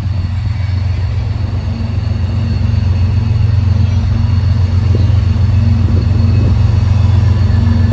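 Diesel locomotives at the head of a loaded coal train running as the train approaches, a steady low engine drone that grows slowly louder.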